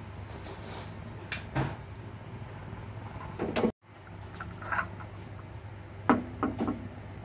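Light knocks and clinks of cookware handling over a steady low hum, with a brief gap in the sound about four seconds in.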